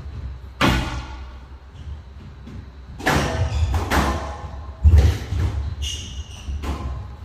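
Squash rally on a glass court: about five sharp strikes of racket on ball and ball on the walls, spaced a second or more apart, over low thudding footfalls on the court floor. A brief shoe squeak comes about six seconds in.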